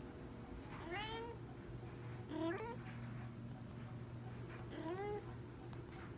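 Silver tabby Maine Coon cat meowing three times, short calls that each rise in pitch.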